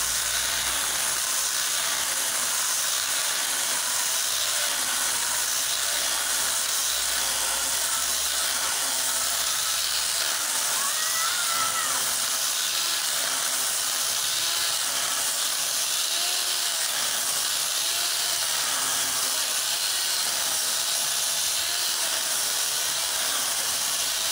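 Electric angle grinder converted to a chainsaw with a bar-and-chain attachment, running at speed as its chain cuts through a log. The sound is steady and unbroken.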